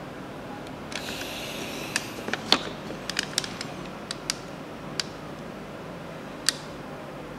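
Light plastic clicks and a short scraping rustle from hands working a plastic Play-Doh ice cream maker, over a steady low hiss.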